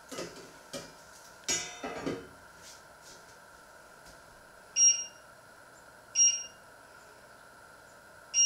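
Kitchen utensils: a frying pan knocks and scrapes on the stove, then three short, high ringing pings come at uneven gaps while a long kitchen knife is handled.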